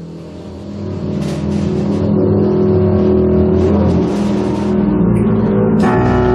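Improvising ensemble of basses, horns, piano and drums: a dense mass of low sustained tones swells, growing louder over the first two seconds, with washes of cymbal, and higher instruments come in near the end.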